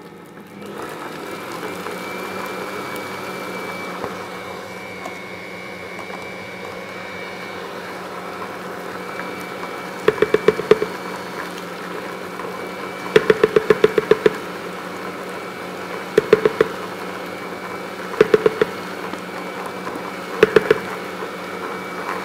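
Electric stand mixer switching on and running steadily while creaming vegan butter, a hum with a thin high tone over it. From about halfway on, short bursts of rapid clacking come every two to three seconds.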